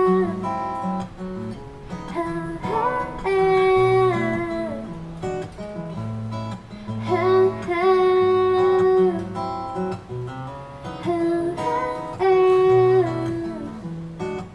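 Live song: a woman singing long held notes over strummed acoustic guitar.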